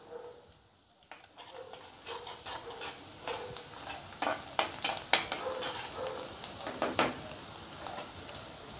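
Onion, green chillies and garlic sizzling in hot oil in an iron kadhai. The hiss picks up after about a second, and a metal spatula scrapes and knocks against the pan a few times midway.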